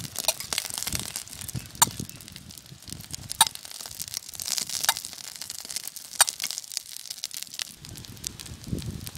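Oil and uthappam batter sizzling on a hot griddle, a steady crackling hiss with occasional sharp pops.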